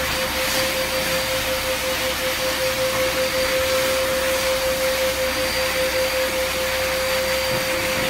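Pet grooming hose dryer (blower) running steadily while drying a dog's wet coat: a constant whine over a rush of air.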